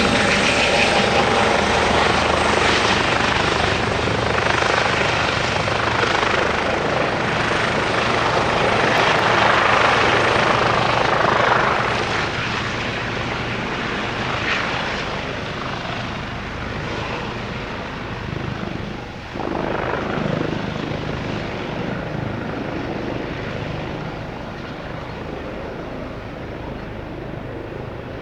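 Eurocopter EC135 twin-turbine helicopter running, its rotor and turbine noise loud at first and then gradually fading from about twelve seconds in, with a brief swell near the two-thirds mark.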